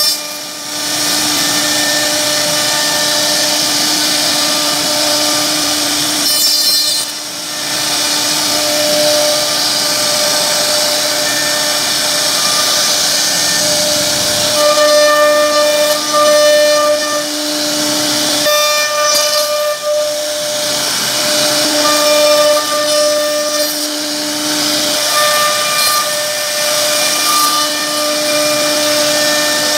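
CNC router spindle running with a steady high whine while its bit carves a relief pattern into a wood panel, over the hiss of the cut. The whine fades and returns at times, and the sound dips briefly about a second in, near seven seconds and near eighteen seconds.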